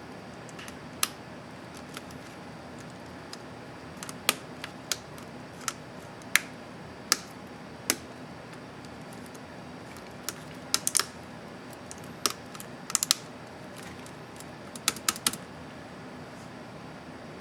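Keys of an HP Pavilion 15-D laptop keyboard being pressed with sharp, irregular clicks: some single presses, and several quick runs of three or four.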